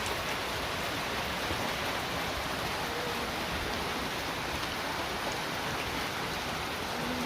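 Steady rain falling, a continuous even hiss with no letup.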